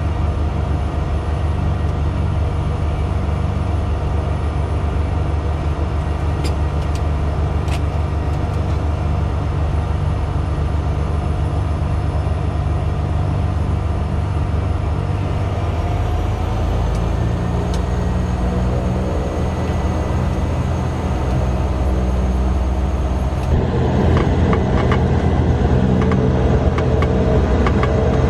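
Cessna 208B Grand Caravan's PT6A turboprop engine and propeller heard from inside the cabin on the ground, a steady drone. Its pitch rises about halfway through as power comes up, and it turns louder and rougher near the end.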